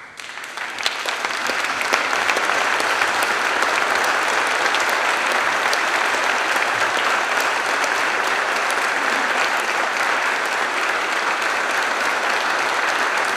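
Audience applauding: a dense, steady clapping that swells over the first two seconds and holds, greeting the presentation of an award plaque.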